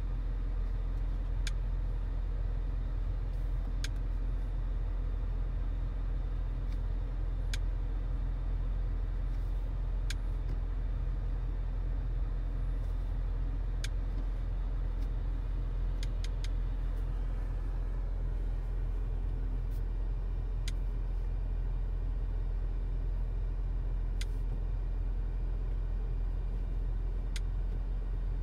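Audi SQ5 Sportback's turbocharged V6 running steadily, an even low rumble with no revving, with a few faint clicks every few seconds.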